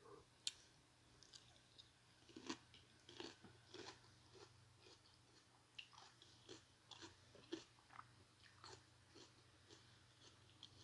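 Faint close-miked chewing and biting of food, with irregular small mouth clicks and crunches and a sharper click about half a second in.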